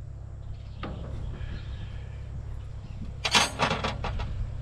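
Metal hand tools clattering while fittings are worked loose on a backhoe's hydraulic valve: one sharp clack about a second in, then a short run of loud rattling clicks about three seconds in, over a steady low hum.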